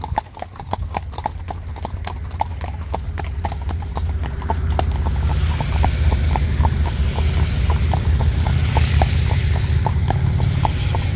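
A horse walking on an asphalt driveway, its hooves clip-clopping in a steady rhythm of about three strikes a second. A steady low rushing noise grows louder under the hoofbeats about four seconds in.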